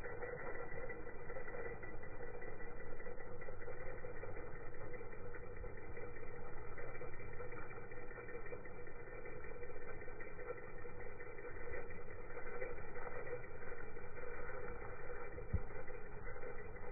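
Axial SCX10 RC rock crawler's brushed 550-size 35-turn electric motor and geared drivetrain whining steadily under load as it crawls, the level rising and falling with the throttle. A single low thump comes near the end.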